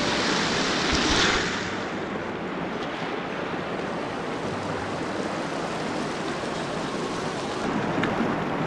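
A shallow mountain creek rushing and splashing over rocks in a steady wash of water noise, loudest about a second in. The hikers take its flow to be swollen by the rain.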